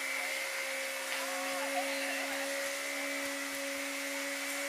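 A steady mechanical hum holding one constant pitch, over an even background hiss.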